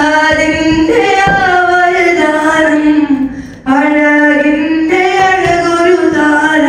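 Young man singing a Malayalam madh (Islamic praise song) solo and unaccompanied, holding long notes that bend and waver. There is a short breath break about three and a half seconds in.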